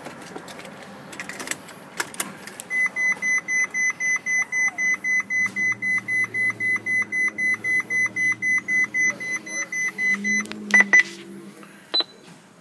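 Rapid electronic beeping, one high tone repeated about four to five times a second for roughly seven and a half seconds, then stopping. A few clicks follow near the end.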